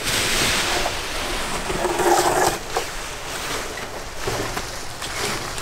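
A paraglider wing being pulled up off the grass, its canopy fabric and lines rustling and rushing as the wing fills with air and rises overhead, with wind on the microphone. The rush starts suddenly and is loudest in the first couple of seconds.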